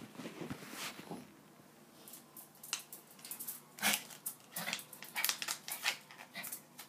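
Dog's claws clicking and tapping on a tiled floor: a run of short, sharp clicks, thicker from about three seconds in after a quiet second or so.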